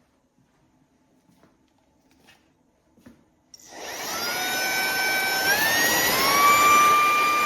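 Cordless handheld vacuum cleaner switched on about three and a half seconds in. Its motor spins up with a rising whine that steps up twice in pitch, then runs steadily at a high whine with a loud rush of air.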